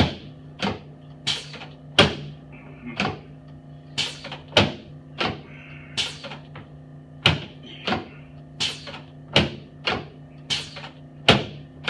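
A rapid series of sharp clicks or knocks, about one and a half a second and fairly even, from chiropractic adjusting on a drop-piece treatment table. A steady low hum runs underneath.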